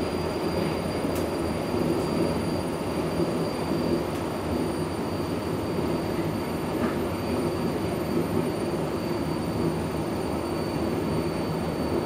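Berlin U-Bahn F79 train running steadily, heard from inside the car: an even rumble of wheels on rails and running gear, with a thin steady high tone over it.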